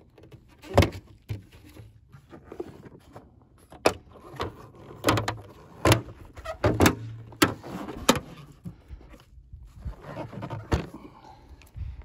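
Plastic seat and lid of a Thetford Aqua Magic IV RV toilet being fitted onto its two hinges: a series of sharp plastic clicks and knocks, the loudest about a second in, with handling rustle between.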